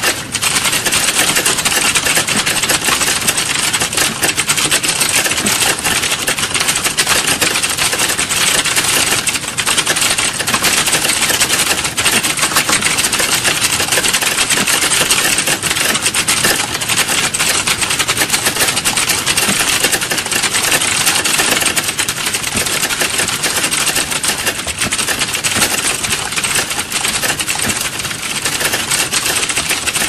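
Fast, continuous typing on a computer keyboard: a dense run of key clicks with no pauses.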